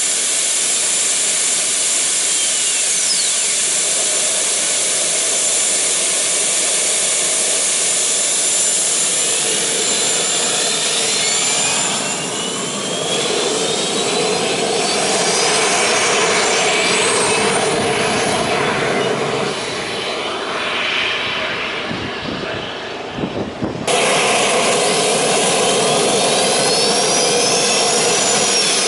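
Rolls-Royce Allison C20 shaft turbine of a motorcycle running with a steady high whine. Whistling tones climb in pitch several times as it spools up, and near the end one rises and then falls away.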